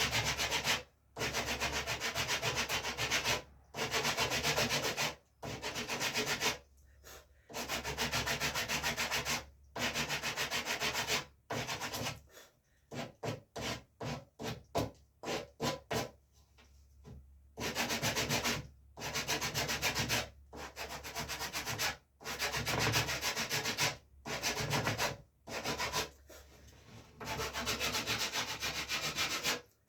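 Sandpaper on a wooden sanding block rubbing over the rawhide backing of a wooden bow: long hand strokes of a second or two each with short pauses, and a run of short, quick strokes midway.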